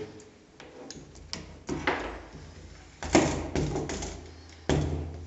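Knocks and clicks on a steel entrance door around its emptied peephole hole: a series of sharp taps, the loudest about three seconds in and another near the end.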